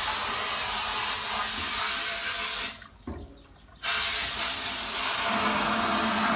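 Wet-blasting gun in a home-built blast cabinet spraying a slurry of water and glass beads: a steady loud hiss that cuts off sharply about two and a half seconds in, with a single click in the pause, then resumes about a second later. A steady hum joins near the end.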